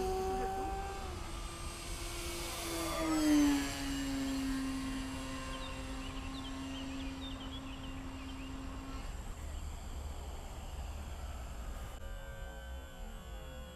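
RC model airplane's motor and propeller whining as the plane flies past; the pitch drops sharply about three seconds in, then holds steady and fades out about nine seconds in.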